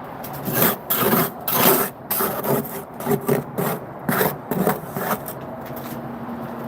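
A mason's trowel scraping mortar off a board or stone in a quick, irregular series of short strokes, stopping about five seconds in.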